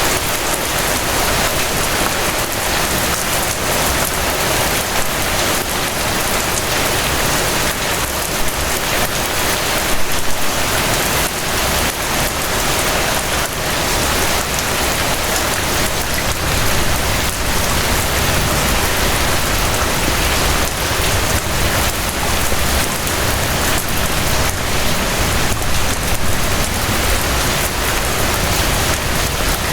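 Steady rain falling: an even hiss with a dense patter of drops and a low rumble underneath.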